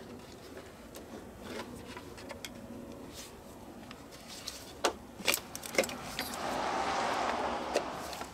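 Spark plug wire boots being pulled off a 4.6L V8's spark plugs by hand: a few sharp clicks and pops a little past halfway, then about a second and a half of rubbing and rustling.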